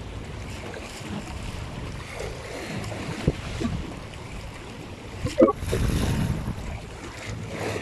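Wind buffeting the microphone over the wash of the sea, swelling into a louder gust about six seconds in. A few small clicks from the fishing rig and its plastic bag being handled.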